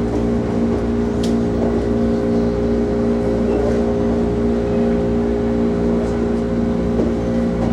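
Interior of an electric commuter train car while it runs, a steady low rumble with a constant hum of several tones.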